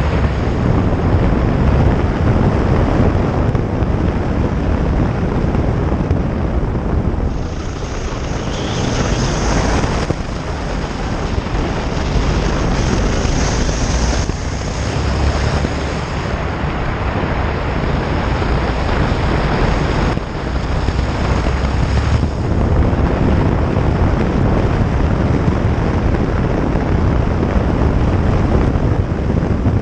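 Honda Varadero motorcycle riding steadily along a gravel road: engine and tyres on gravel under a loud rush of wind over the microphone. A thin high whistle comes and goes.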